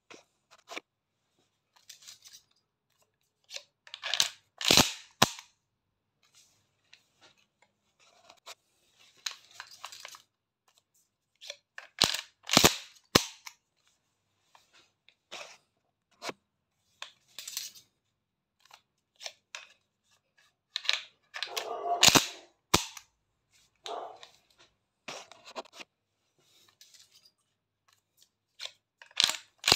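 Pump-action shotgun handled in dry-fire practice: the rustle of the gun being brought up, then sharp metallic clicks and clacks from the trigger and the pump action. This comes in four bursts roughly eight seconds apart, with lighter handling clicks in between.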